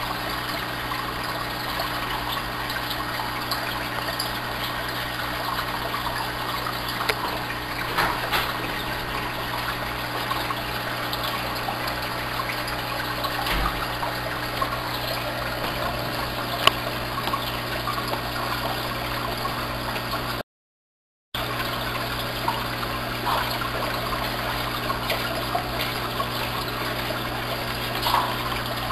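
Large home aquarium bubbling: a steady stream of air bubbles from air diffusers driven by double air pumps, water trickling through the filters, and a constant low pump hum underneath. The sound cuts out completely for about a second about two-thirds through.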